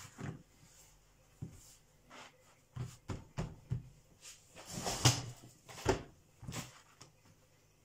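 A large leather hide shifted and smoothed flat by hand on a wooden table: irregular rustles and soft thumps, the loudest cluster about five seconds in.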